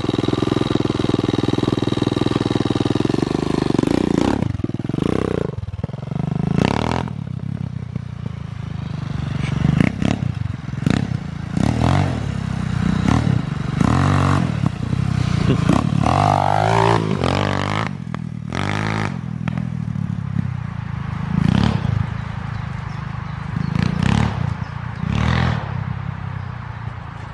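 200cc pitbike's single-cylinder engine, fitted with a new cylinder, idling steadily for a few seconds. It is then revved in repeated short bursts while being ridden, the revs rising and falling again and again.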